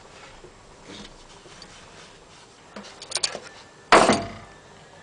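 Metal tool parts knocking together: a few light clicks about three seconds in, then one loud clank that rings briefly, as a bushing puller is handled under the van's subframe.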